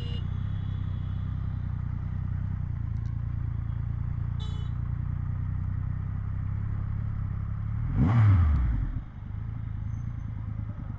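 Triumph Rocket 3R's three-cylinder engine idling steadily, with a brief rise and fall in engine pitch about eight seconds in that is the loudest moment.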